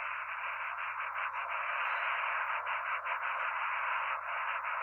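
Steady rushing roar of the Bell X-1's four rocket chambers firing, a thin, narrow-band sound as heard from an old film soundtrack through a small speaker.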